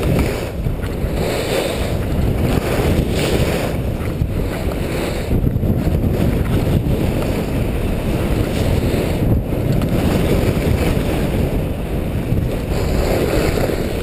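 Wind rushing over a body-worn microphone at skiing speed, a loud low rush that swells and eases, mixed with the hiss of skis sliding over snow.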